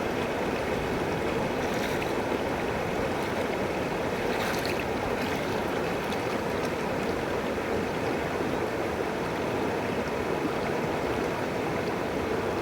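River water flowing steadily over rocks, an even rushing burble, with a couple of faint brighter splashes about two and four and a half seconds in.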